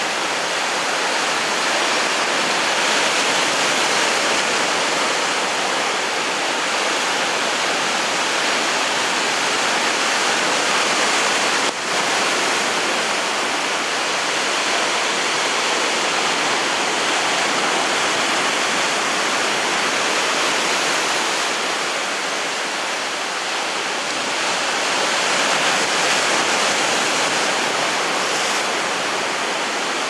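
Sea surf breaking and foaming over shoreline rocks: a steady rushing hiss that swells and eases a little, with one brief dip about twelve seconds in.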